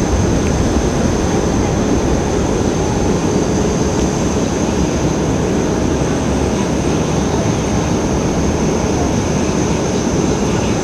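Jet engines of a Lion Air Airbus A330 rolling along the runway after touchdown: a steady loud rumble and rush, with a thin high tone held over it.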